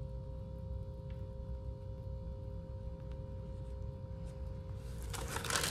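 Quiet room tone: a low steady hum with a faint, even whine. A soft rustle comes in near the end.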